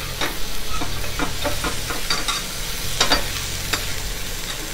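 Chicken broth and minced garlic sizzling in a hot frying pan while a metal slotted spatula stirs and scrapes the pan, deglazing it. The spatula makes repeated short scrapes and taps against the pan.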